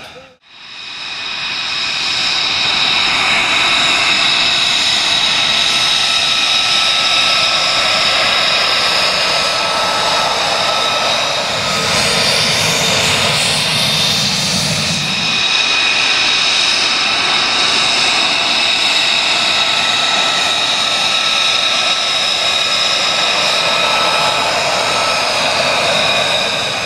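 F-35A Lightning II's Pratt & Whitney F135 jet engine taxiing past: a steady high whine of several held tones over a rushing jet noise. The sound fades in at the start and swells with a deeper rumble for a few seconds about halfway through.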